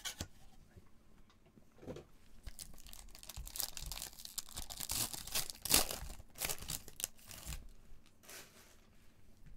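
A sealed Panini Donruss basketball card pack's plastic wrapper being torn open by hand, crinkling and ripping in a run of bursts over several seconds, loudest a little past the middle.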